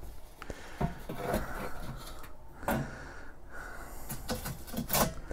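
Metal cooking grate being set back into a Char-Griller Akorn kamado grill: a few knocks and scrapes of metal on metal, the loudest about five seconds in.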